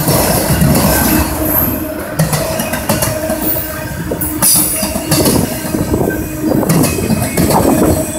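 Autorack freight cars of a CSX train rolling past at close range: a steady rumble of steel wheels on rail with frequent clicks and knocks and a few brief high squeals.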